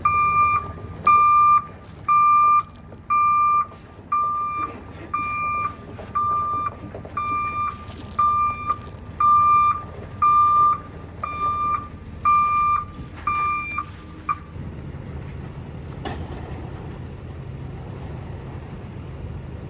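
Delivery truck's reversing alarm beeping steadily, about one and a half beeps a second, over the low rumble of the truck's engine as it backs up. The beeping stops about fourteen seconds in and the engine keeps running.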